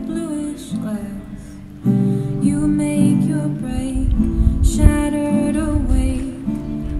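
Live acoustic music: an accordion holding sustained chords while a woman sings a melody over it. The music gets louder about two seconds in.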